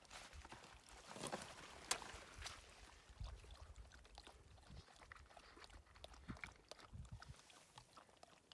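Gear being handled at close range: faint rustling and scattered clicks as a nylon bag is opened and a plastic bottle taken out, with one sharper click about two seconds in and irregular low rumbles.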